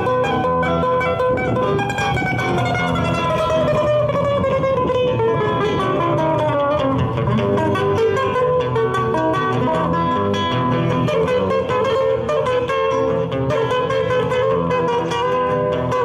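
Two acoustic guitars playing a Peruvian música criolla song, with strummed chords and picked melody lines.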